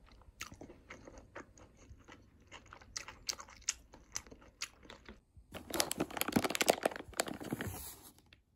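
Plastic food packaging being handled: scattered crinkles and light taps, then a denser stretch of crinkling and rustling lasting about two and a half seconds near the end.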